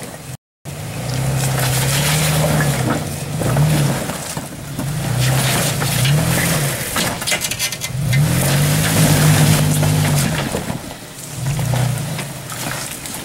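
A lifted Toyota Tacoma crawls over rocks, its engine rising and falling in pitch with repeated short bursts of throttle. Rocks crunch and scrape under the tyres. There is a brief dropout about half a second in.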